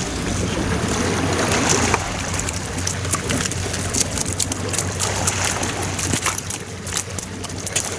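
Steady wind and sea noise on the microphone, with a run of short sharp clicks and ticks from about three seconds in.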